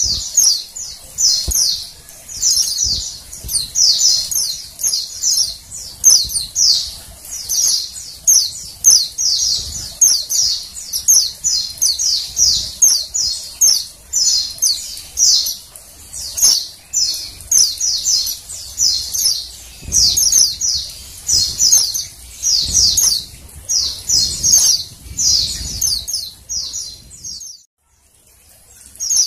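Female white-eye (pleci) calling: a continuous run of short, high, rapid chirp clusters, about two a second, which stop shortly before the end.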